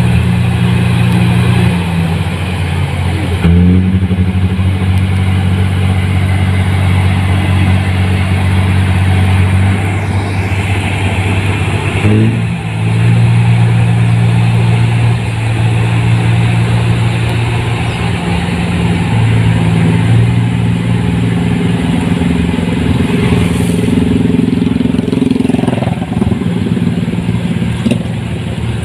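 New Holland 1545 combine harvester running while harvesting rice: a loud, steady engine and machinery drone whose pitch steps up and down several times as the engine speed changes.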